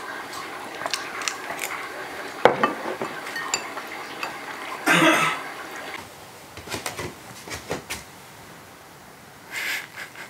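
Tableware clinking and knocking as someone eats: bowls and utensils making scattered light clicks, with a sharper knock about two and a half seconds in and a brief louder burst about five seconds in.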